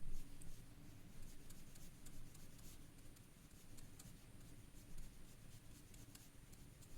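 Watercolour brush working paint onto a paper swatch card: faint soft scratching with scattered light taps.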